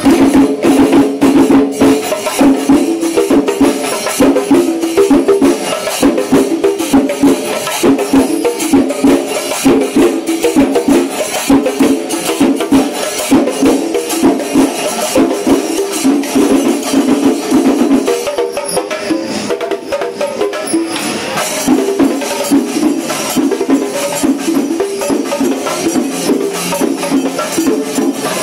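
Loud, fast percussion music: drums with jingling cymbal or rattle strikes over a steady pitched part, the low part dropping out briefly a little past the middle.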